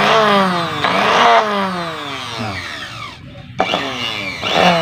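Electric sewing-machine motor driven through its carbon-pile foot pedal, whirring up in short bursts several times and winding down after each, its pitch falling as it slows.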